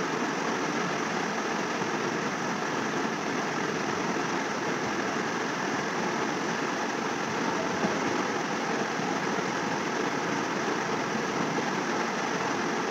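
Steady, even background hiss that holds at one level with no breaks or changes: room noise.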